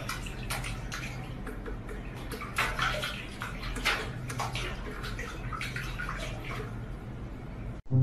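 Water in a stainless-steel kitchen sink splashing and sloshing irregularly as a cat paws and dabs at it, over a low steady hum. The splashing cuts off shortly before the end.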